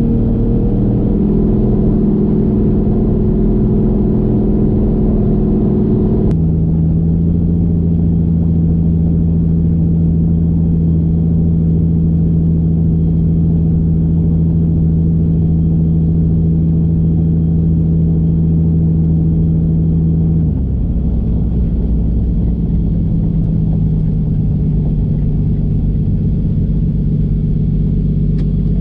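Toyota 1JZ turbocharged inline-six in a Fox body Mustang, cruising at steady part throttle. Its note drops a step about six seconds in, holds steady, then eases lower from about twenty seconds in as the car slows.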